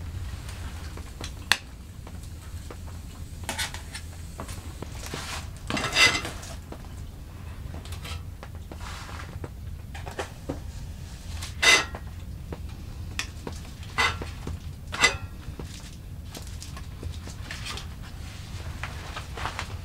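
A metal spoon and a titanium cooking pot clinking and knocking as the stew is stirred and the pot is handled on the stove, about seven separate sharp clinks with the loudest about six seconds in, over a low steady hum.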